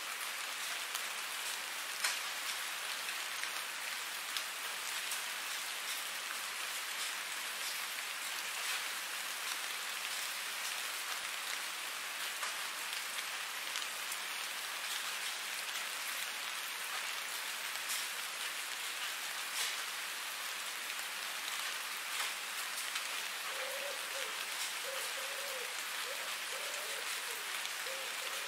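Steady rain falling, with single drops now and then ticking sharply above the even hiss. Near the end a faint wavering tone repeats about once a second.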